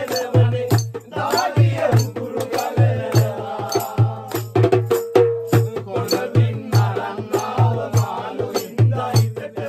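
Live group music: men singing along to fast, even hand-played percussion, with a hand-held wooden clapper rattling, hand claps and a low thumping beat.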